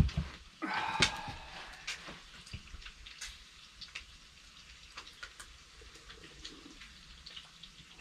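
A thump and a short creak from a plastic Adirondack chair as a person sits down in it, followed by faint scattered ticks and taps.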